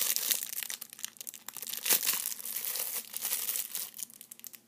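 Clear plastic wrapper crinkling and crackling as a panda squishy is handled inside it, a dense run of small crackles that is loudest about two seconds in and thins out near the end.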